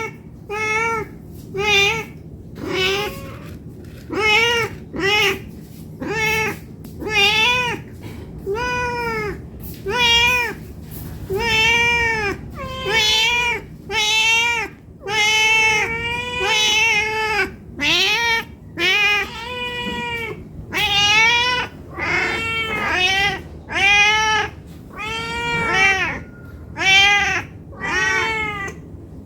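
Domestic cat meowing over and over, about one meow a second, each call rising and then falling in pitch: a hungry cat begging for food.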